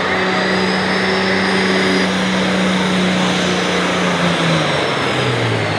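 McCormick MTX 200 super stock diesel pulling tractor running hard at full throttle, a steady engine drone with high turbocharger whistle over it. About four and a half seconds in, the engine pitch drops and the whistle falls away as it throttles back.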